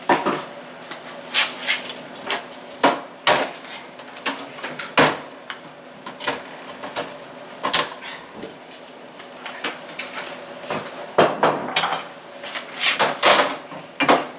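Irregular knocks, clinks and rattles of jars, bottles and plastic containers being taken out of a refrigerator and set down, with a busier run of clatter near the end.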